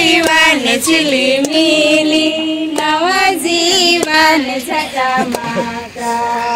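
A group of women singing together, clapping their hands in time.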